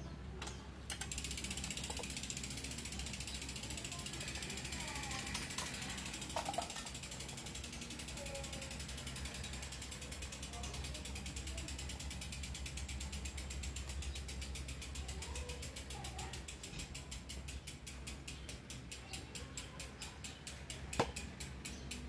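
Mountain bike's rear freewheel ticking rapidly as the wheel spins on its own, the pawl clicks slowing and spreading out over the last several seconds as the wheel runs down.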